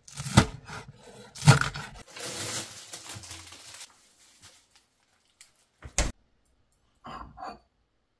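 Kitchen prep with a knife on a cutting board: two sharp knocks, then a few seconds of scraping. Near the end come a few light clicks and two short rough sounds.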